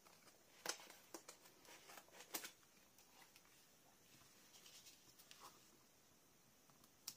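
Near silence, broken by a few faint taps and rustles of a cardstock scrapbook page being lifted and laid back down on a cutting mat, with one more light click near the end.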